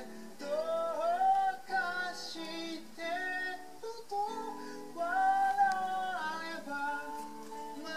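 Music playing from a television: acoustic guitar accompanying a singing voice.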